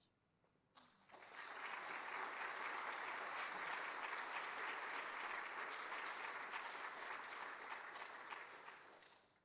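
Audience applauding. The clapping starts about a second in, holds steady, and dies away shortly before the end.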